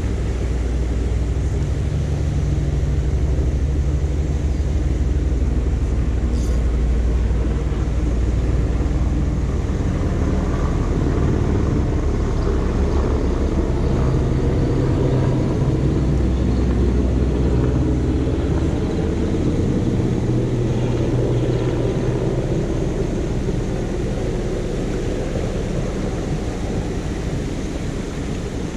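A small moorland waterfall and stream rushing steadily, with a low, uneven rumble of wind on the microphone that swells and drops.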